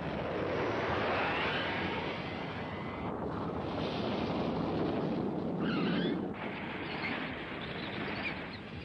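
Animated sci-fi sound effects: a steady, noisy rush of explosion rumble and fighter spacecraft engines, with a sweeping whoosh about a second in and another about six seconds in.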